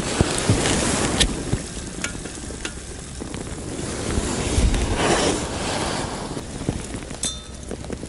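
Rustling and handling noise from making tea in an enamel mug, in two swells about a second long each, with a few light clicks.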